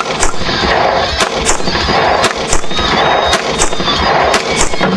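Gas hissing out of a pressurised tank that has just been shot open, with sharp cracks coming in pairs about once a second over the hiss.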